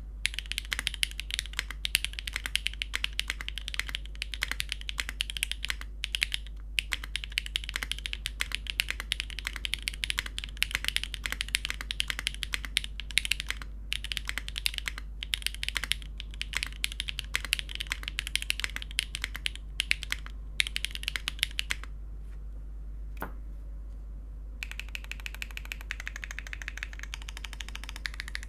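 Typing on a Machina Cloudnine mechanical keyboard with a carbon fiber plate, Siliworks x Gateron Type R switches and GMK keycaps: a fast, dense run of key clacks. About 22 seconds in it stops for two or three seconds with a single click, then typing resumes more softly.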